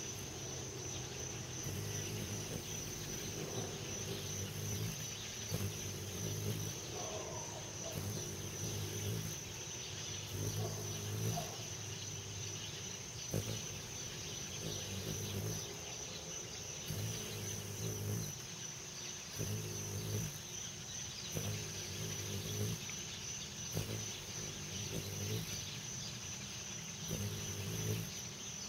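Insects trilling steadily in one high, unbroken tone, with a low hum that swells and fades about every second and a half.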